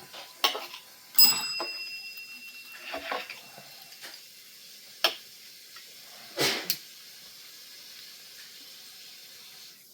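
A small tap bell rung by the cat for food, struck once about a second in, its ring fading over a couple of seconds. A few light knocks and clatters come before and after it.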